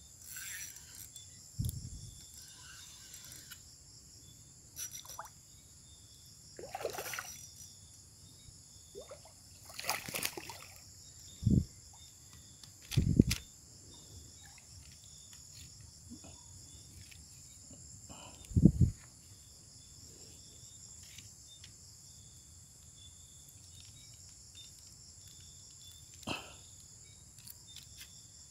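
Faint water sloshing and splashing at the shoreline as a hooked fish is drawn in to the bank, with a few short low thumps scattered through, the loudest about halfway through.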